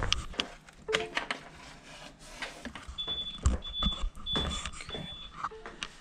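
Battery backup unit's alarm beeping four times in quick succession, high and even, starting about halfway through: the sign that it has switched to battery power in a power outage. Scattered knocks and low thumps around the beeps.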